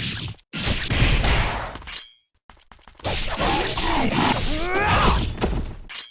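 Katana sound effects: loud hits and swishes in separate bursts, each cutting off abruptly. The longest burst, from about three seconds in, carries several rising ringing tones.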